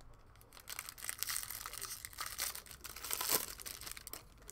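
Foil wrapper of a 2020 Bowman Draft trading-card pack being torn open and crinkled by hand, starting about a second in and loudest near the end.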